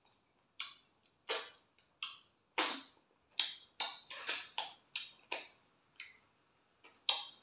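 Close-up mouth sounds of eating fufu with okra soup by hand: irregular wet lip smacks and chewing clicks, about two a second.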